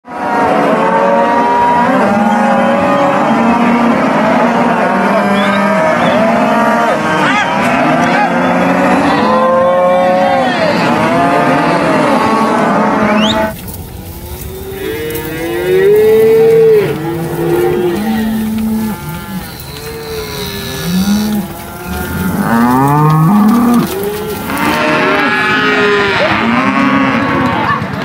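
A herd of cattle bawling, many moos overlapping at once. The sound changes abruptly about halfway through, to fewer, more separate calls, and thickens again near the end.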